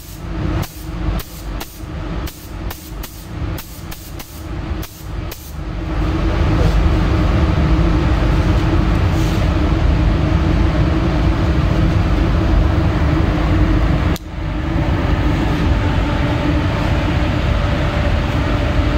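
Compressed-air paint spray gun hissing steadily, with one brief break about two-thirds of the way through. It is led in by several seconds of short, evenly spaced pulses, about two to three a second.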